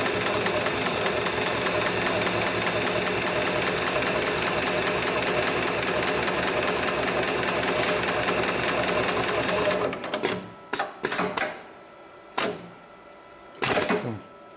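HIGHTEX #7273PLK automatic pattern sewing machine running at speed, stitching heavy military belt webbing with a fast, even needle rhythm and a steady high whine. It stops suddenly about ten seconds in, followed by several short clacks.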